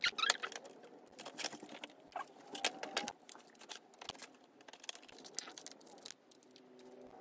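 Thin clear plastic sheet crinkling and clicking as rocket fins are punched out and handled: irregular small crackles and ticks.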